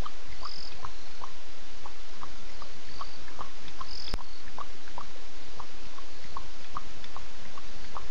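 Night chorus of small animals at a waterhole: short chirps repeated about three times a second over a steady hiss, with a few higher chirps mixed in and a single sharp click about four seconds in.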